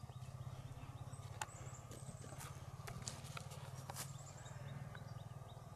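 Quiet forest ambience: a steady low hum, a few sharp scattered clicks, and short high chirps now and then.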